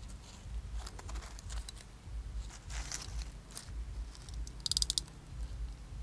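Light rustling of dry leaves and handling of wire, then near the end a quick run of sharp clicks as a hand crimping tool closes on a fork terminal on the wire.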